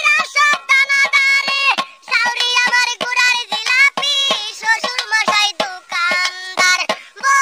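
A Bengali comic folk song: a high-pitched voice singing a bending melody over a quick, steady beat.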